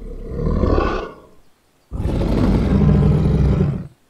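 Dragon roar sound effect, heard twice: a roar of about a second, then a longer, deep roar lasting about two seconds.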